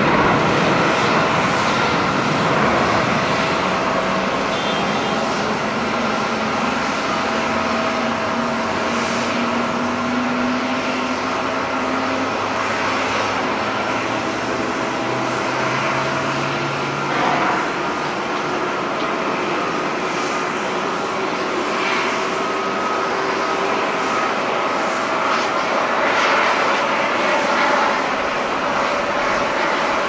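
British Airways Boeing 787 jet engines at takeoff power as the airliner rolls down the runway and climbs away: a steady, loud jet roar with slowly rising tones running through it.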